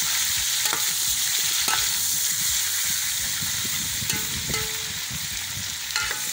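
Chunks of meat sizzling in hot fat in a metal pot as they are browned, with a metal ladle scraping and clinking against the pot several times as they are stirred.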